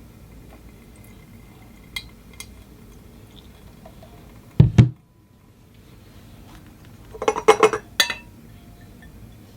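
Coffee-brewing gear being handled: a couple of light clicks, then two heavy knocks about halfway through, then a quick run of glassware and dishes clinking together near the end.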